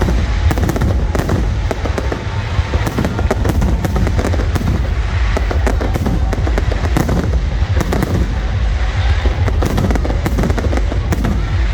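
Fireworks display in full swing: a continuous barrage of bangs and crackling bursts in rapid succession over a steady low rumble.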